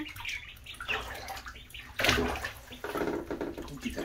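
Khaki Campbell ducklings paddling and dabbling in shallow bathtub water: splashing and sloshing, with one louder splash about two seconds in.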